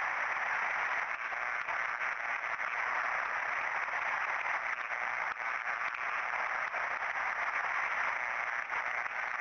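Steady static-like hiss from an SDT270 ultrasound detector's headphone output as its flexible sensor scans the edges of an electrical cabinet. The ultrasound is converted down to audible noise.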